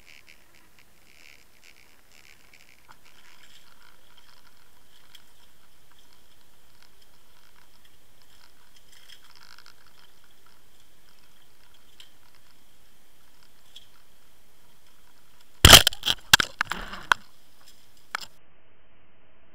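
Underwater sound from a camera towed on a fishing line behind a swimbait: faint water noise with light ticking and scraping, and a steady thin high hum from about three seconds in. About sixteen seconds in comes a quick cluster of loud sharp knocks, with one more knock about two seconds later.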